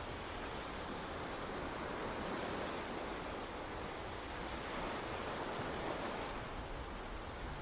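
Steady ocean surf: a continuous wash of breaking waves that swells slightly a couple of times.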